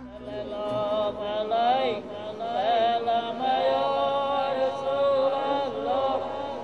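A congregation of men chanting Islamic devotional recitation together, several voices in a sustained, wavering melody. It rises in from a quiet start about a second in.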